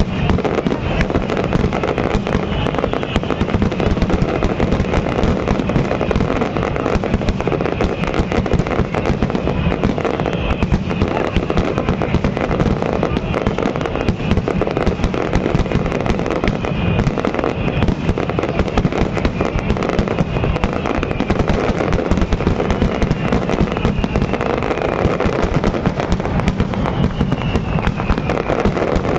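Dense fireworks barrage: a continuous rapid mass of bangs and crackling with no gaps, shells and crackling stars bursting on top of one another. Faint falling whistles come through now and then.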